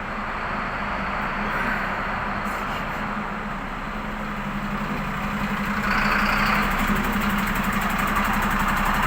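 Truck diesel engine idling steadily with a fast even pulse, getting louder about six seconds in.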